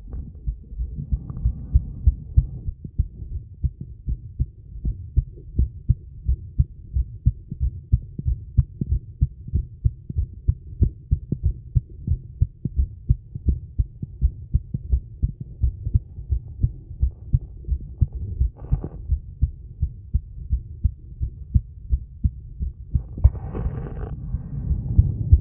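A woman's heartbeat, amplified, beating steadily at about two beats a second after the exertion of a plank. A few brief breathy rushes sound over it near the start, once in the middle and again near the end.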